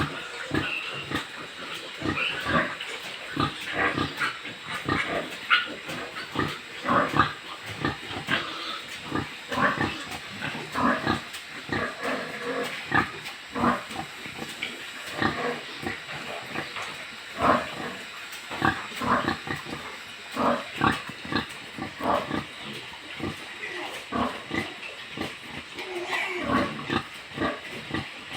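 Many pigs calling at once: a continuous run of short, overlapping grunts.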